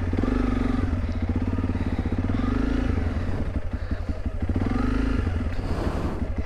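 Honda CRF300 Rally's single-cylinder engine running as the motorcycle rides slowly along a muddy dirt track, its note rising and falling with the throttle. There is some clatter around the middle.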